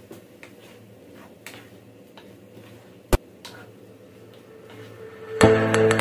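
A few faint ticks and knocks of a wooden spatula against a non-stick pan while shrimp and bell pepper are stirred, with one sharp click a little past three seconds. Background music comes back in near the end.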